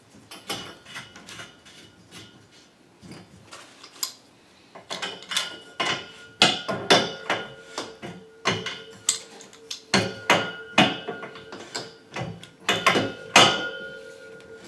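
Spanner tightening the union nut of a chrome radiator valve: repeated sharp metallic clicks and scrapes of the tool on the fitting. They are sparse at first and come faster and louder from about five seconds in.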